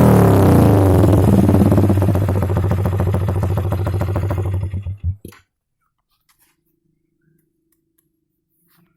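Yamaha Vixion's single-cylinder four-stroke engine through an SC-Project aftermarket exhaust, settling from a rev down to an even pulsing idle, then switched off about five seconds in.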